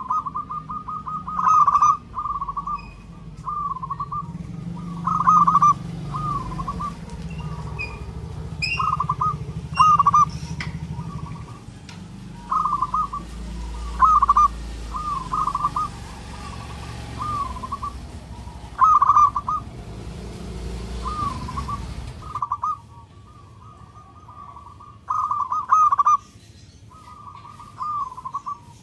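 Zebra dove (perkutut) singing, repeating its short staccato cooing phrases every second or two. A low rumble runs underneath and stops suddenly about three-quarters of the way through.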